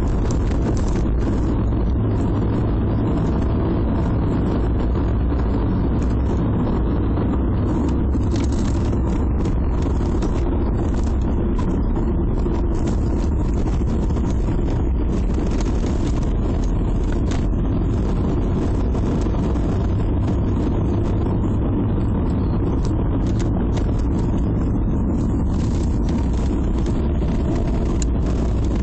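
Volkswagen Passat driving steadily, heard from inside the cabin: a constant low rumble of engine and tyre noise.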